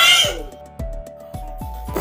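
Children's background music with a steady beat; a high voice trails off about half a second in and the music carries on alone.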